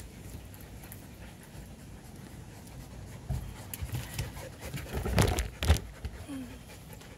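A dog panting, with a short cluster of louder knocks around five seconds in.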